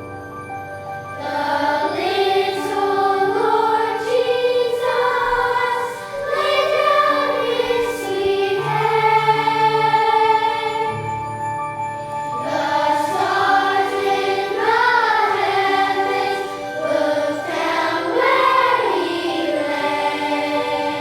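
A choir singing a holiday song with instrumental accompaniment, sustained voices moving through a melody.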